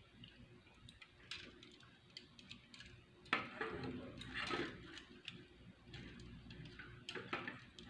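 Hard plastic parts of an assembled Gunpla model kit clicking and scraping as its armor and joints are handled and repositioned. Scattered light clicks, busiest around the middle.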